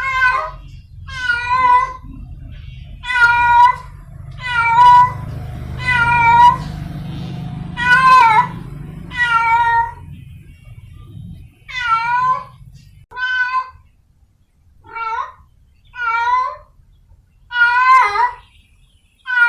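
A stray domestic cat in heat yowling over and over, about a dozen drawn-out, pitch-bending meows with short pauses between them: its mating call. A low background rumble underlies the first two-thirds.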